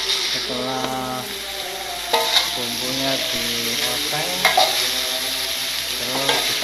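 Spice paste sizzling as it is stir-fried in a wok. A metal slotted spatula scrapes and knocks against the pan a few times.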